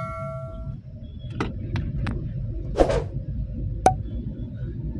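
Steady low rumble of a car driving on a wet road, heard from inside the cabin, with a few light clicks and a short swish near the middle. An electronic chime rings out and fades in the first second.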